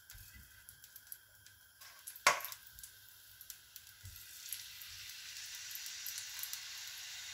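Marinated chicken pieces laid onto a hot, oiled tawa with tongs. There is a sharp knock of the tongs on the pan about two seconds in, then oil sizzling under the chicken that grows steadily louder from about four seconds in.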